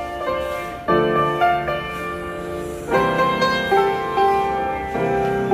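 Instrumental background music with held, piano-like notes, the chords changing about a second and three seconds in.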